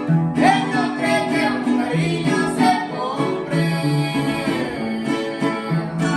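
Music: plucked string instruments, guitar-like, playing with a voice singing over them.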